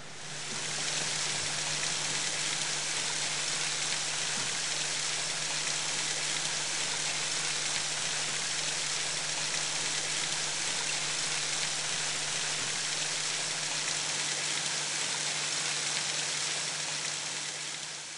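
Steady rush of a shallow creek flowing over rocks, with a steady low hum underneath; it begins to fade at the very end.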